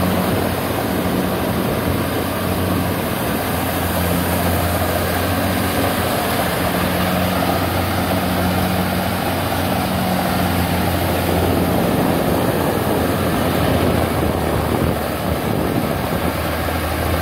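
Kubota DC70 combine harvester running steadily while harvesting rice, its diesel engine humming with the threshing machinery turning.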